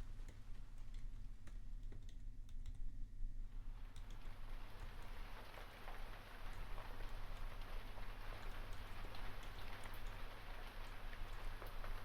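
Computer keyboard typing, keys clicking in an irregular run, over steady rain; the rain swells louder and denser about four seconds in.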